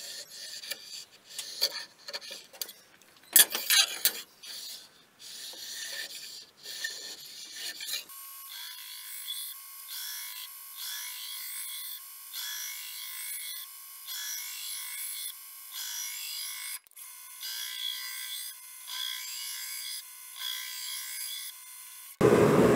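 A height-gauge scriber scratching layout lines onto the steel khopesh blank, in short uneven scrapes and clicks. About eight seconds in it gives way to a thin, high rasping that repeats in pulses about a second apart, as the blade is ground on a belt grinder.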